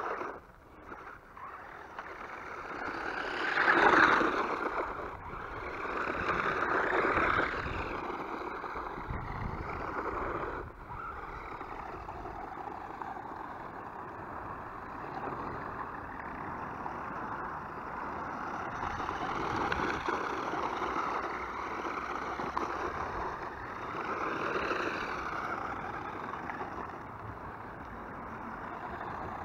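Absima Hotshot 4WD RC car running on a dirt surface, its motor whine rising and falling with the throttle as it speeds up and slows down, loudest about four seconds in.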